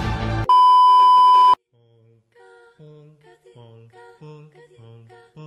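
Background music cuts off about half a second in and gives way to a loud, steady electronic beep tone that lasts about a second and stops abruptly. A soft, quiet plucked-note melody then begins at an even pace.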